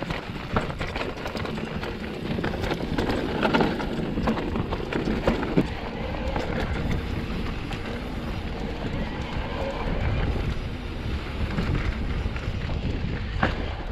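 Specialized Turbo Levo e-mountain bike rolling over a rough rocky trail: tyres crunching on gravel with frequent short knocks and rattles, over a steady rumble of wind on the microphone.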